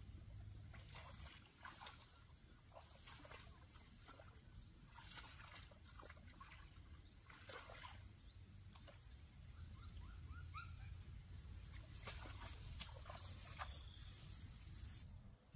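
A puppy's faint whines amid soft rustling and light knocks, with a few short rising whimpers about ten seconds in.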